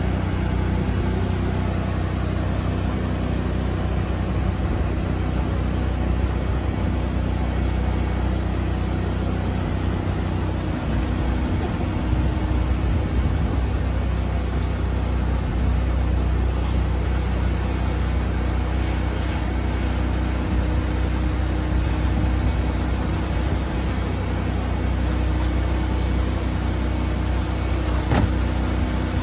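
Bin-washing trailer's engine running steadily at a constant speed, with a sharp click about a second before the end.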